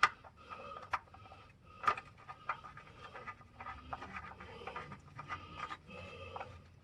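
Faint scattered clicks and handling noises of a drain plug being fitted back into an oil pan with a ratchet on a long extension, a sharper click about a second in and another about two seconds in.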